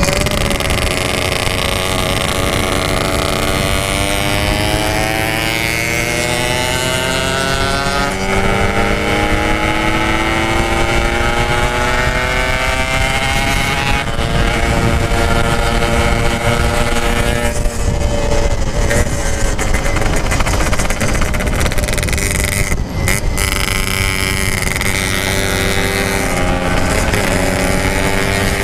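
Yamaha RX-King 135cc two-stroke single running through a Packing Power exhaust while riding. Its note climbs as it accelerates, drops back at a gear change about eight seconds in and climbs again, then holds a steadier pitch from about halfway.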